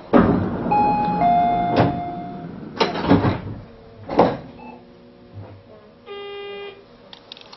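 Train cab sounds at a station stop on a Tobu 50090 series electric train. A loud rushing noise at the start fades over a couple of seconds, under a two-note falling chime. Three sharp thuds follow, typical of the sliding doors shutting, and about six seconds in comes a short buzz, the signal buzzer in the cab.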